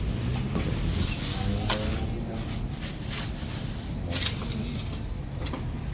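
Café background: a steady low hum with faint, indistinct voices and a few light clicks or clinks, about a second and a half in, around four seconds and near the end.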